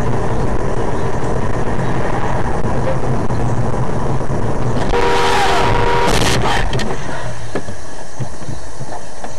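Road and engine noise of a car in traffic, recorded by an in-car camera, with a steady horn tone held for about a second near the middle over a loud burst of noise.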